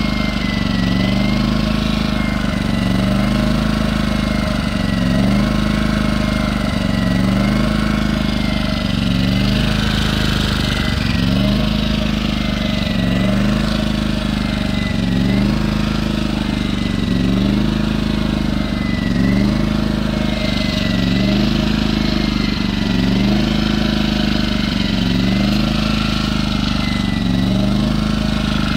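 Firman W01785 inverter generator running steadily, its engine speed rising and falling slightly about every second and a half.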